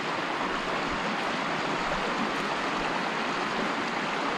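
River water running steadily over rocks: an even rushing sound with no change.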